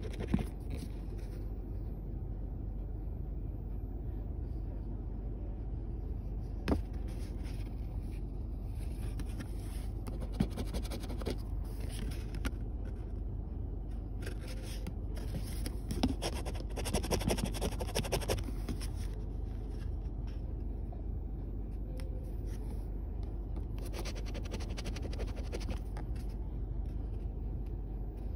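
A penny scratching the coating off a scratch-off lottery ticket, in scraping spells that come and go, with a quick run of rapid strokes a little past halfway. A steady low hum lies underneath.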